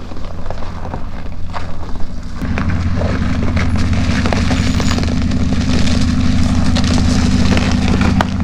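Three-quarter-ton pickup truck's engine running as the truck rolls slowly across the ice, a steady low hum that gets louder about two and a half seconds in as the truck comes close.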